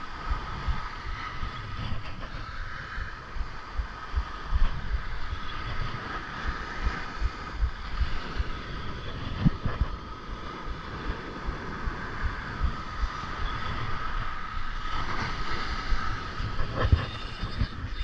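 Wind buffeting the microphone in low, rumbling gusts, with the wash of surf breaking on the beach behind it.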